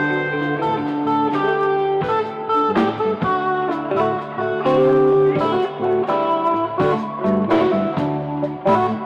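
Live rock band playing an instrumental passage: electric guitars over a drum kit.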